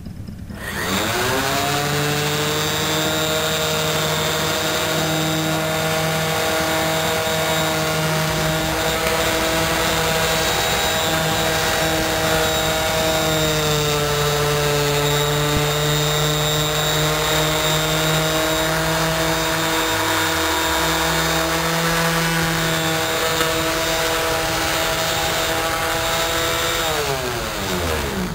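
Electric random orbital finishing sander spinning up about a second in and running steadily as it buffs a chrome exhaust pipe with a polishing cloth and Blue-Job powder paste. Its pitch drops slightly midway as it is pressed on, and it winds down near the end.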